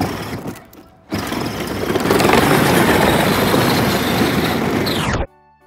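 Battery-powered Power Wheels ride-on toy driving over brick pavers: its electric drive and hard plastic tyres make a loud, steady noise that starts about a second in and cuts off abruptly near the end.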